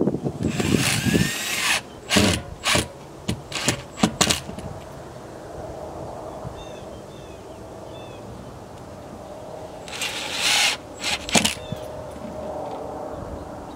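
Cordless drill driving screws into wooden siding: the motor runs with a rising whine for about a second, then comes a string of short trigger blips, and after a quieter stretch another run near the end followed by two short blips.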